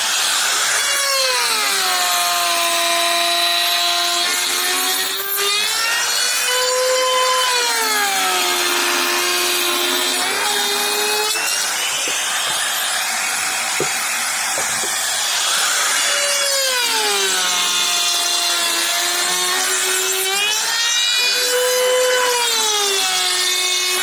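Electric power tool cutting into wood: its motor whine drops in pitch as it bites in and climbs back as the load eases, several times over, over a rough cutting noise.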